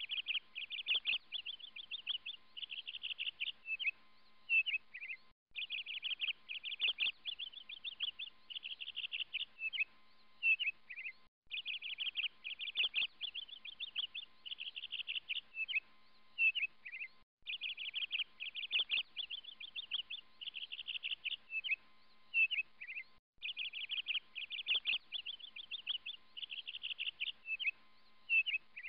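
Songbird chirping and trilling in rapid phrases, a short recording played on a loop: the same six-second stretch of song repeats again and again, with a brief silent break between repeats.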